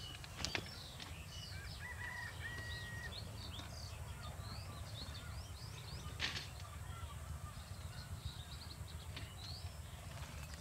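Small birds chirping and whistling in many short, quick calls over a steady low rumble, with two sharp clicks, one about half a second in and one about six seconds in.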